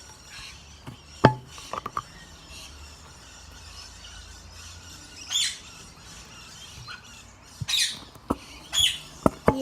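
Pet bird in a cage giving short, high squawks three times, in the second half. Near the start, a couple of sharp knocks.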